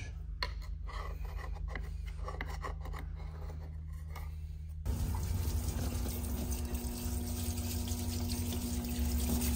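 A metal tool scraping sludge out of a Scania oil centrifuge's rotor bowl, in short scrapes and clicks. About five seconds in, this gives way to a parts washer running, its pump humming and solvent splashing steadily from the nozzle over the parts.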